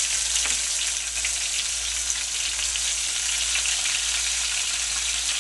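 Battered oyster mushroom tempura pieces frying in very hot oil in a pan, a steady sizzling with fine crackling throughout, during their second fry.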